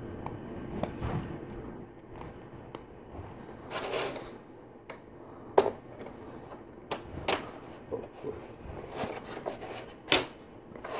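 LEGO Technic plastic parts being handled and pressed together: scattered sharp clicks and light rattles, the sharpest about five and a half seconds in, with a short rustle of parts about four seconds in.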